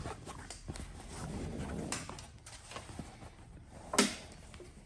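Canvas hood and rope rustling as the rope is handled and pulled through a metal eyelet, with scattered small clicks and one sharp knock about four seconds in.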